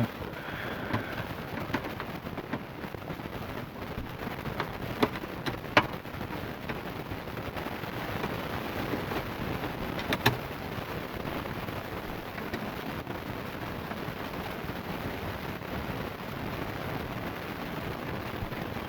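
Hand tools removing the two Phillips screws and the plastic kick panel in a car footwell: a few sharp clicks and knocks over a steady background hiss.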